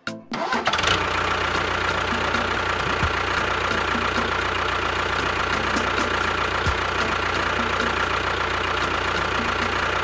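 Small motor starting about half a second in, then running steadily with a constant high whine.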